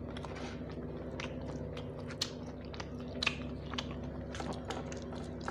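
A person chewing and eating rice by hand, with fingers mixing rice in a steel plate giving scattered soft clicks and scrapes. A steady low hum runs underneath.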